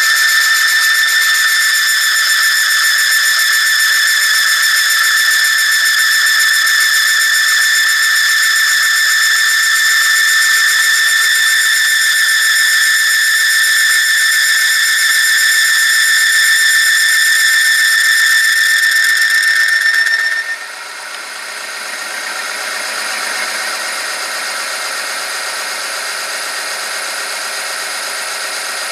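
Oil film strength tester running under load in hot engine oil: the test sample rubs against the motor-driven rotating ring, giving a loud, steady, high-pitched squeal. About twenty seconds in, the squeal cuts off abruptly and gives way to a quieter, rough grinding run.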